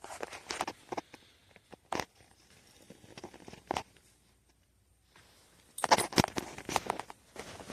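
Scattered clicks, knocks and rustling of objects being handled, falling almost silent about four to five seconds in, then a busier run of clicks and rustling near the end.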